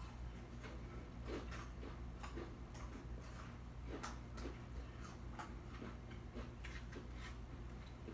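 Close-miked chewing and mouth smacks of a person eating: irregular short clicks and smacks, several a second at times, over a steady low hum.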